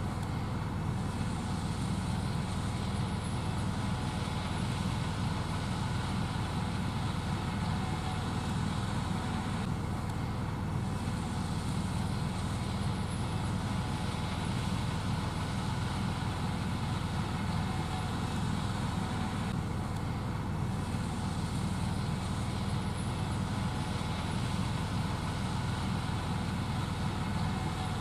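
Gleaner S78 combine running steadily while harvesting and shelling corn, a constant low machine drone.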